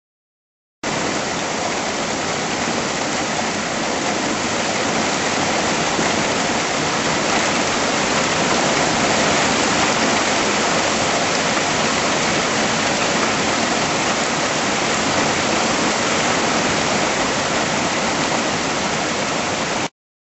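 Very heavy rain pouring down in a loud, steady hiss. It starts and cuts off abruptly.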